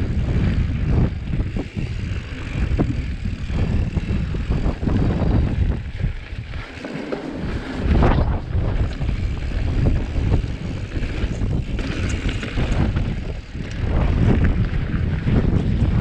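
Wind buffeting a handlebar-mounted GoPro Hero7 Black's microphone as a mountain bike rolls fast down a dirt and gravel trail, mixed with tyre rumble and many short rattles and knocks from the bike over bumps. The rumble drops briefly about six to seven seconds in, then comes back.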